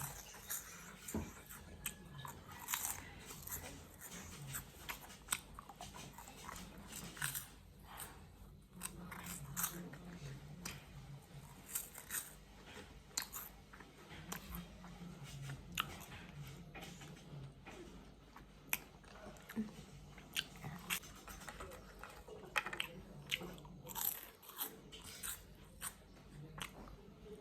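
Close-up crunching and chewing of crisp potato chips: irregular sharp crackles, several a second, with mouth sounds between bites.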